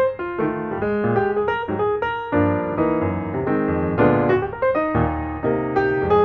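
Solo piano music: a melody of separate struck notes, with fuller chords coming in about two seconds in.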